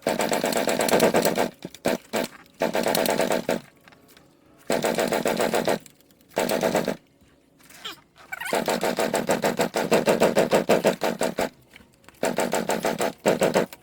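1975 dirt bike engine being kick-started again and again: about six bursts of rapid pulsing as it turns over and sputters with each kick, the longest about two thirds of the way through, without catching and running. The owner blames the failure to start on a faulty key switch.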